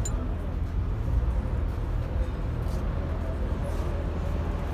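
Steady low rumble of vehicle traffic or engines running in the background, with a few faint clicks of a hand wrench on metal fittings.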